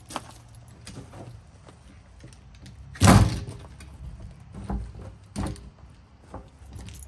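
Plastic hopper lid of a SaltDogg tailgate salt spreader being pushed down and latched into place: one loud clack about three seconds in, then two softer knocks.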